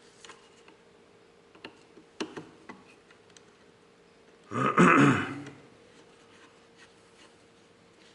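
A few light clicks and taps of small metal parts and tools being handled during reassembly of a car horn. About halfway through comes one loud throat-clearing, lasting about a second. A faint steady hum sits underneath.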